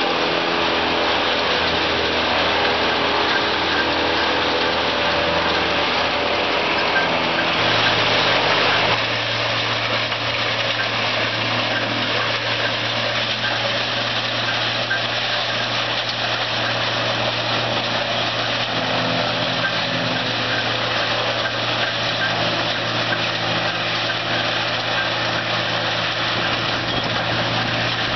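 Fecon MZA3250 horizontal grinder running under load, grinding wood waste: a loud, continuous engine and grinding din. About eight seconds in, the sound changes to a steadier low hum.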